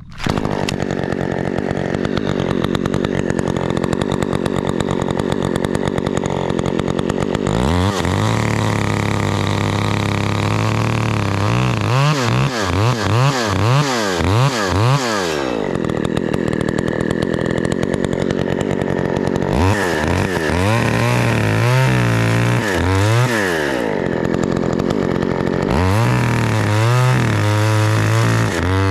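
Two-stroke chainsaw starting up and running, then throttled up to high revs in three spells, with rapid up-and-down revving in between.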